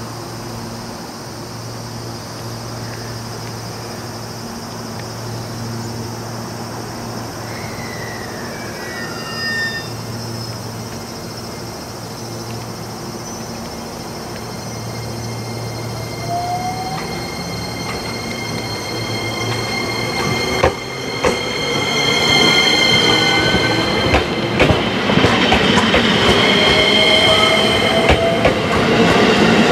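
125-series electric train standing with a steady hum, then pulling away: the whine of its motors rises in pitch about halfway through. Over the last third the wheels clatter over rail joints, getting louder.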